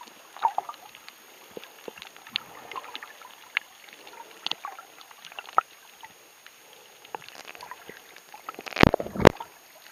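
Muffled underwater sound picked up by a submerged camera: scattered small clicks and crackles over a faint water hiss, with two loud thuds close together about nine seconds in.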